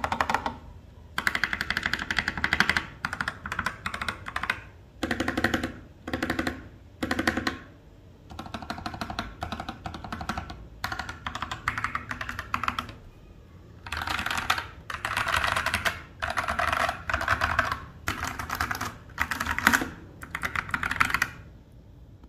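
Fast typing on a mechanical keyboard fitted with PBT keycaps: bursts of rapid key clicks one to two seconds long, separated by short pauses, stopping shortly before the end.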